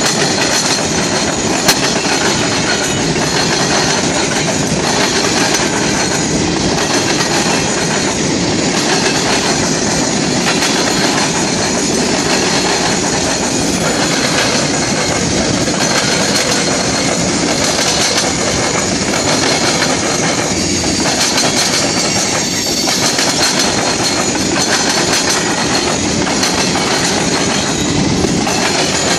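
Norfolk Southern manifest freight cars rolling past close by: a steady, loud rumble of steel wheels on rail, with clickety-clack from the wheels crossing rail joints and switches and a faint steady high ring underneath.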